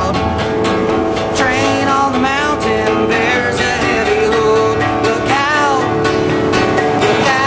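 Acoustic guitar strummed in a live country-folk song, with a pitched melody line that bends up and down over the chords.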